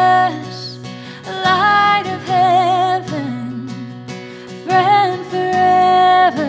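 A woman singing two long phrases of held notes with vibrato, accompanied by acoustic guitar.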